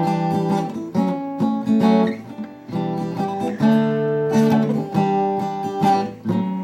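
Acoustic guitar strummed and picked between sung verses, chords struck about once a second, each left ringing.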